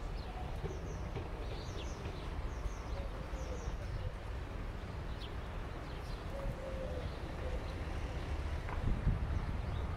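Outdoor ambience: a steady low rumble, with faint high bird chirps in the first few seconds.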